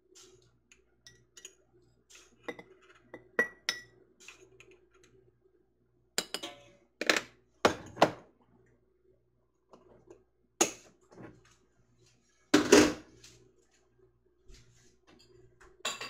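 A measuring spoon clinking and tapping against glass quart canning jars as salt is spooned into each jar: a string of light clicks and clinks, a few with a short ring, and several louder knocks.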